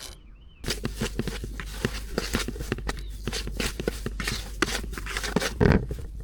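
Handling noise: a quick run of clicks, rustles and light scrapes that starts suddenly about half a second in, with one louder thump a little before the end.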